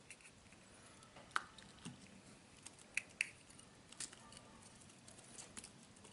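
Handling noise from a smartphone monocular being fitted onto a small tripod: scattered small clicks and taps, with four sharper ones between about one and four seconds in.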